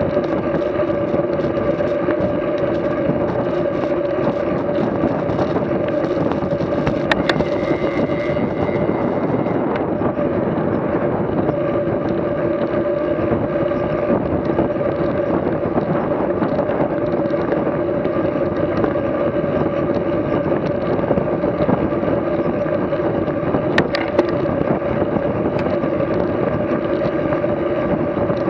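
A vehicle engine running at a steady speed, an unchanging drone with a constant pitch, with two sharp clicks, one about seven seconds in and one late on.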